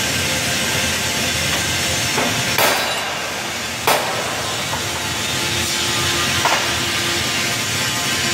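A hammer knocking a few times on the steel frame, two sharp strikes loudest about two and a half and four seconds in, with lighter taps around them, over a steady rushing noise.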